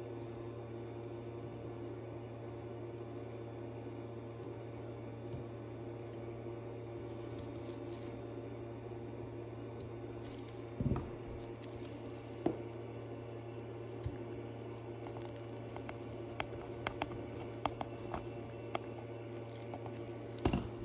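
Steady electrical hum in a small room, with sparse light clicks and taps of small watchmaking tools handling the parts of a watch movement, which come more often near the end.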